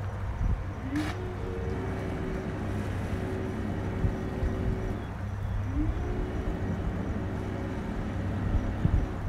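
Motor yacht's engines idling in a steady low hum. Twice a whine rises in pitch and then holds level for a few seconds, and there is a sharp click about a second in.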